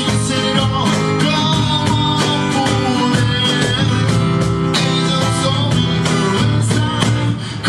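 Acoustic guitar playing chords over hand percussion keeping a steady beat, with no lead vocal.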